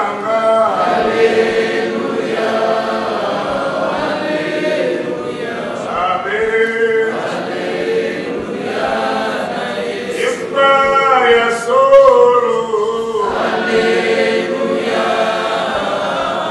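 A congregation of men and women singing a hymn together without accompaniment, in sung phrases with short breaks between them.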